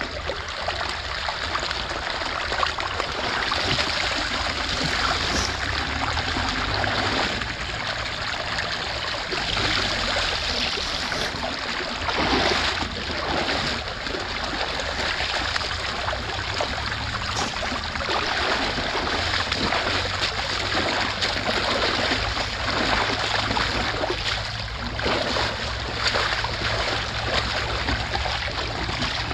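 Shallow creek water rushing and splashing through a breach in a beaver dam, with occasional splashes as sticks and leaves are pulled out of it by hand.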